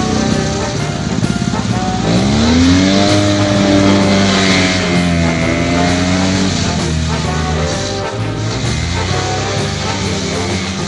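A vintage snowmobile engine running under background music. It revs up steeply about two seconds in, holds high for a few seconds, then drops back.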